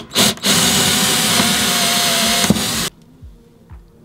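Handheld power drill with a twist bit boring through a wooden worktop: a couple of short trigger blips, then a steady run of about two and a half seconds that stops suddenly.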